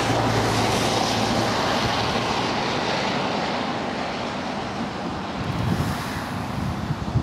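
Steady rushing outdoor noise that slowly fades, with a low hum in the first second or so and wind buffeting the microphone from about five seconds in.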